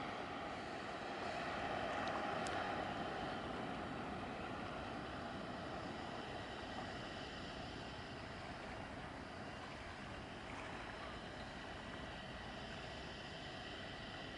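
Distant harbour tugboat passing: a steady wash of engine and wake noise, a little louder a couple of seconds in and then easing off slightly.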